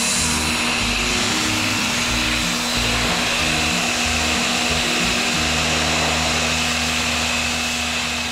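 Resqtech RSQ-PW101 electric pressure washer spraying a high-pressure jet of water onto concrete, a steady hiss, with background music over it.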